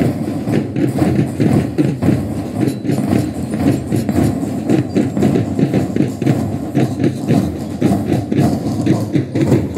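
Parade drums beating a steady, rapid marching rhythm, dense and continuous with no pause.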